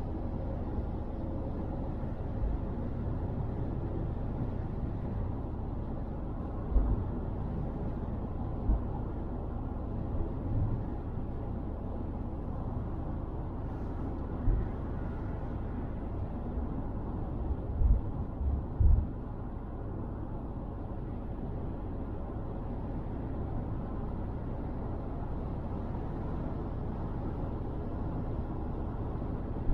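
Car driving on a motorway: a steady low rumble of road and tyre noise, with a few short low thumps now and then, two of them close together a little past the middle.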